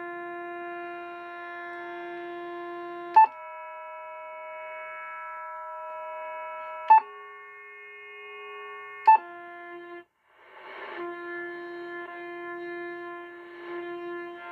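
Shortwave receiver in lower sideband mode playing a strange signal of several steady tones held at once. The chord of tones jumps to a different set with a sharp click about three, seven and nine seconds in, cuts out briefly near ten seconds, and comes back after a short burst of static.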